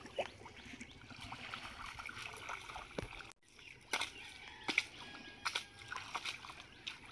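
Cast net being hauled up out of a shallow pond, water trickling and dripping from the mesh with scattered small splashes and sloshing.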